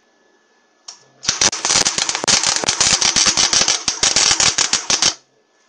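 Gasless flux-core MIG welding arc crackling and spattering with rapid irregular pops for about four seconds, starting a little over a second in after a short click and cutting off abruptly. It is set to low power (2 of 6), and the welder suspects the weld may be running too cold.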